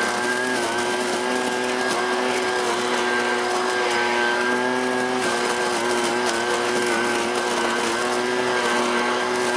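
Husqvarna 125BV blower-vacuum's small two-stroke engine running steadily at high speed, pulling air in through the vacuum tube, with a thin high whine over the engine note and slight dips in pitch a couple of times.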